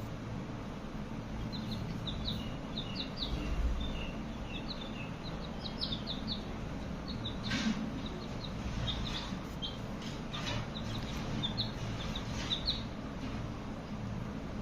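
Baby chicks peeping: many short, high chirps in quick flurries, with a couple of soft knocks among them.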